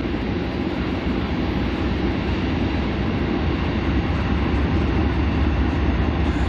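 BNSF coal train passing: the trailing diesel locomotives go by, followed by the steady rolling of the coal hopper cars' wheels on the rails.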